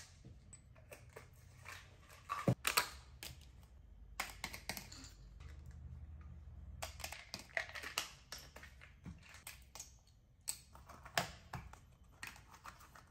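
Light, irregular clicks and rattles of supplement capsules and tablets being dropped into small plastic cups, with plastic bottle caps and snap-on cup lids being handled, in several quick clusters.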